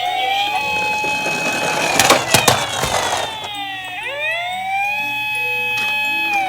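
Electronic siren of a toy emergency vehicle wailing: the pitch rises to a held tone, drops about four seconds in and rises again. A few sharp clacks come about two seconds in.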